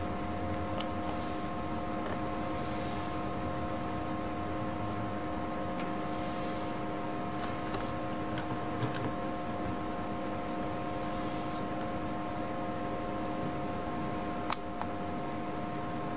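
Steady room hum made of several fixed tones over a noisy hiss, with a few faint clicks and taps scattered through it, the sharpest about fourteen and a half seconds in.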